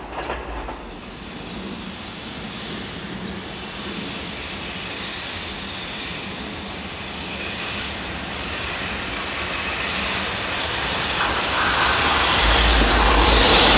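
JR Freight EF210 electric locomotive hauling a train of tank wagons as it approaches. Its running sound swells steadily and becomes loud as the locomotive passes close near the end, with a hissing rush and low rail rumble.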